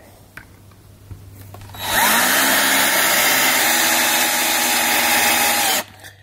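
Power drill driving a screw: the motor spins up with a rising whine about two seconds in, runs steadily for about four seconds, then cuts off suddenly.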